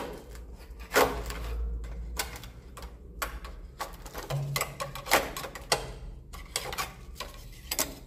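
Pole-mounted swiftlet-nest harvesting tool knocking and scraping against the wooden nest planks, an irregular series of sharp clicks and scrapes as nests are pried off into its net.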